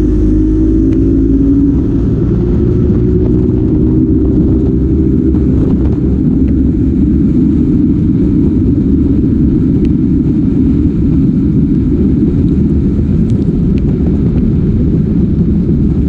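A boat motor running under way: a loud, steady low rumble whose pitch creeps up at the start before settling into an even drone.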